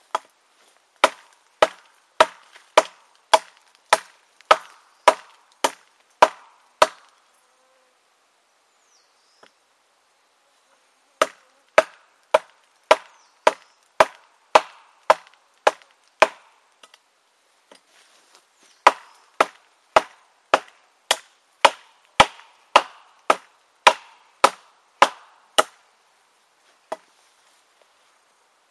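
TOPS Tom Brown Tracker knife chopping into a dead log: sharp wooden chops about two a second, in three runs with short pauses between them.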